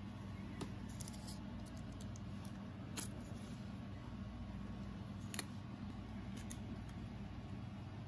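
A few light clicks and crinkles of a small clear plastic bag and a tiny plastic action figure being handled, the sharpest about three and five seconds in, over a steady low hum.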